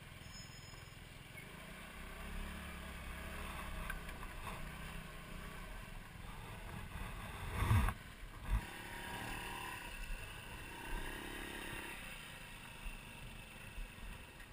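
Motor scooter engine running quietly with a steady low rumble, and two short thumps about eight seconds in.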